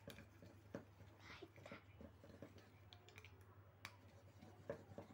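Faint scratching and irregular clicks of a pencil rubbed hard back and forth on the aluminium lid of a drink can, over a low steady hum.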